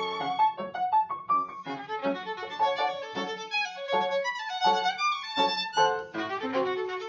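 Violin playing a quick passage of short, distinct notes, with an upright piano accompanying.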